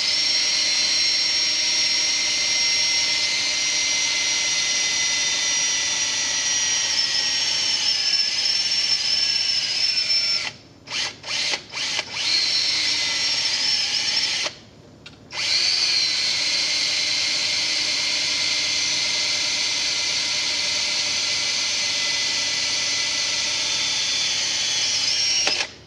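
Cordless drill running at a steady whine as it drills a small hole through the thin steel ring of an engine's rear crankshaft seal. About ten seconds in it stops, with a few short trigger bursts. It pauses again a few seconds later, then runs steadily until just before the end.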